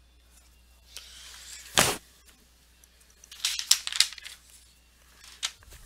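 A single knock about two seconds in, then crisp crinkling and rustling of foil-wrapped trading card packs being handled, in short clusters.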